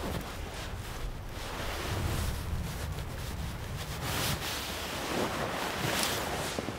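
Wind and flowing river water, with clothing and a backpack rustling as they are handled, louder in two surges about four and six seconds in.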